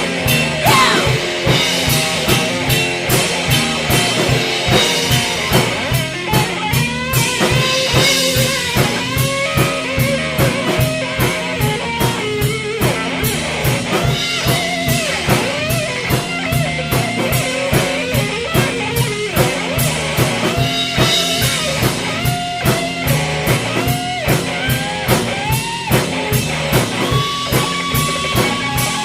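Rock band playing an instrumental passage: a drum kit keeps a steady beat under guitar, with a lead line of bending notes.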